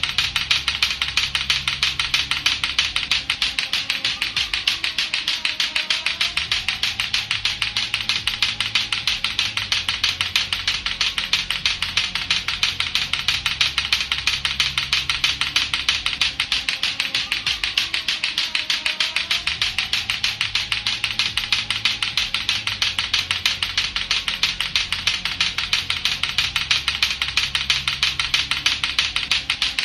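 Lato-lato clacker toy: two hard plastic balls on a string knocking together in rapid, even, nonstop clacking. A looping music bed with low notes plays underneath.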